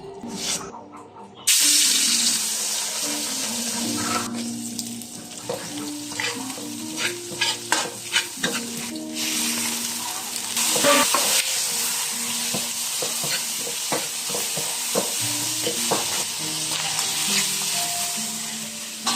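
Food hits hot oil in a pan and starts sizzling suddenly about a second and a half in. It keeps sizzling while it is stir-fried, with the clack and scrape of a utensil against the pan.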